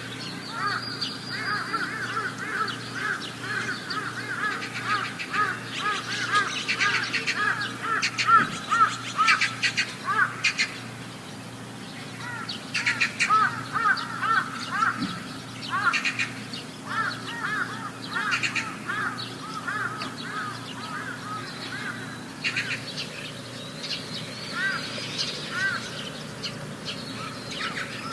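Outdoor animal chorus: long runs of short, rising-and-falling high calls, several a second, from more than one caller, coming in bursts with brief lulls, over a faint steady hum.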